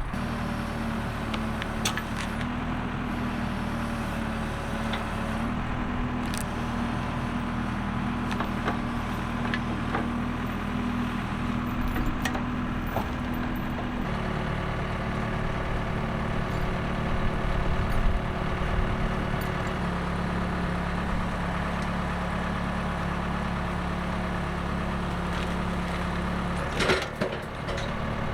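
Woodland Mills HM130Max sawmill's gas engine running steadily under load while milling a log, its pitch stepping down slightly about 14 seconds in and again around 20 seconds. A few sharp knocks sound over it.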